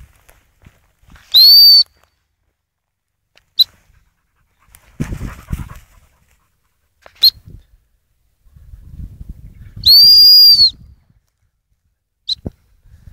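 A dog giving two loud, high-pitched whining yelps, each rising then falling; the second, about 10 seconds in, is longer. A few brief high squeaks come between them.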